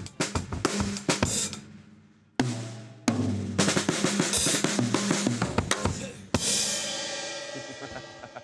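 Drum kit played in a studio live room: quick strokes on snare, toms and kick drum, broken by two short pauses. About six seconds in comes a cymbal crash that rings and slowly fades.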